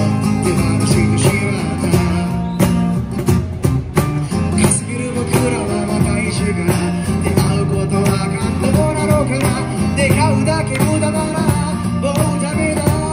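Live acoustic band music: a strummed acoustic guitar, with a cajon and a small cymbal keeping a steady beat. A singer comes through a microphone and small amplifier.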